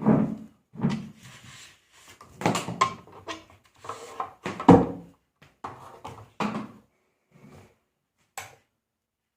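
Handling noises on a workbench: a string of short knocks, clunks and rattles as equipment is moved and plugged in, the loudest clunk a little before five seconds in and a last sharp click near the end.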